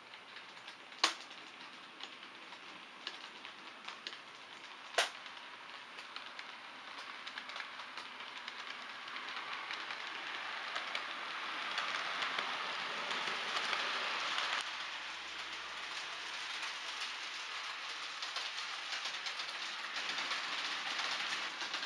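OO gauge model train running on the layout's track: a fine, fast rattle of small wheels over rail joints, louder as the train passes close by and dropping off suddenly about halfway through. Two sharp clicks come in the first five seconds.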